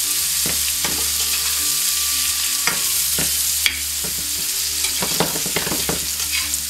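Vegetable hash frying in butter in a pan: a steady sizzle, with a utensil stirring and clicking against the pan many times.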